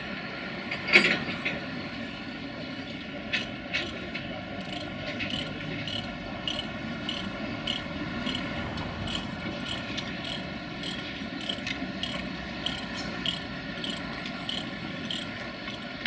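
A sharp metallic clank about a second in, followed by a few lighter knocks, as the tie-down chains and ratchet straps on a tram transport trailer are worked loose. Behind it is steady, regular ticking at about two clicks a second.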